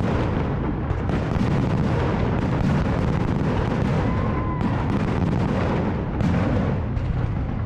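Fireworks display: a dense barrage of booms and crackles overlapping into a continuous rumble, with a brief faint whistle about halfway through.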